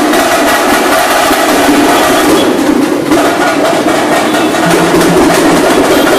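Loud live festival drumming: a band of drums beating a fast, dense rhythm without a break, accompanying a street procession dance.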